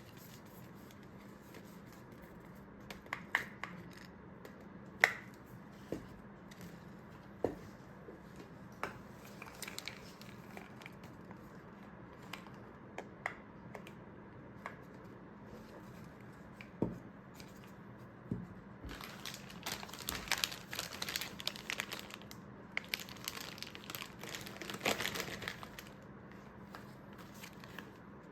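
Packaging being handled: scattered light taps and clicks, then two stretches of crinkling and rustling in the later part.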